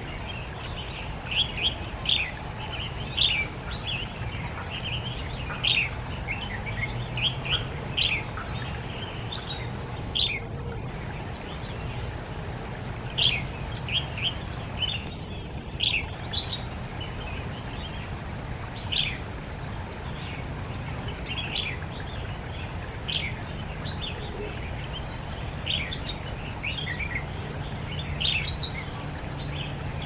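Lesser goldfinches chirping: many short, high chirps coming irregularly throughout, over a steady low background noise.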